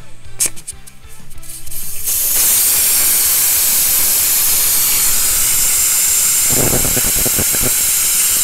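Air rushing out of a tire through a core-removal tire deflator whose valve core has been backed out: the tire airing down. A few clicks of the fittings, then a loud, steady hiss starts about two seconds in and keeps on, with a few low knocks near the end.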